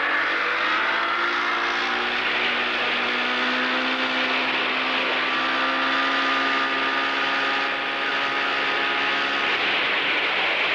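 An engine running steadily, a continuous droning hum with a slight drift in pitch.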